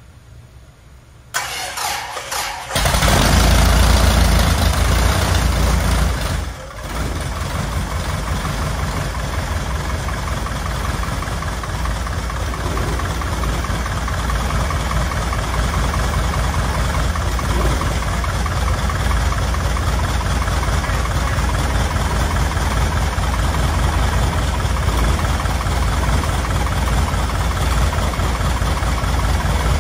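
Light aircraft's piston engine turning over on its starter, catching within a couple of seconds and then running loud and steady: its first start. The level dips briefly about six and a half seconds in before settling into steady running.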